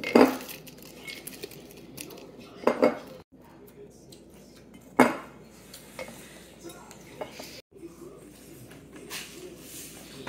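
Kitchen handling clatter of a plastic blender jar and utensils: scattered knocks and clinks, the loudest right at the start, a double knock near three seconds in and another about five seconds in.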